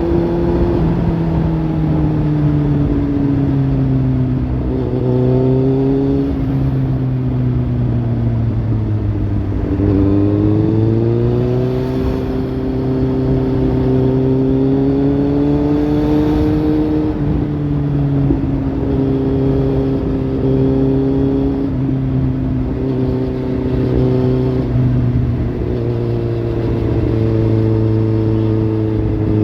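Kawasaki Z800's inline-four engine through a Lextek slip-on exhaust, running at steady middling revs, its pitch sagging and climbing again several times.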